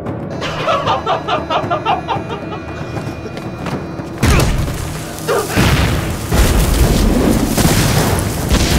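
A woman laughs in a quick string of high syllables. About four seconds in, a sudden heavy boom sets off a run of film explosion effects with deep rumbling blasts.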